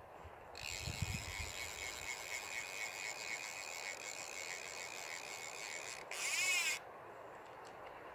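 Fly reel clicker buzzing as the spool turns during the fight with a steelhead: a steady, fast ratchet lasting about five seconds, then a louder, faster burst of under a second that stops abruptly.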